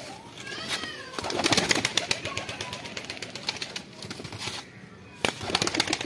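Pigeon wings flapping hard: a long run of rapid wing claps, a short pause about five seconds in, then a sharp clap and more flapping.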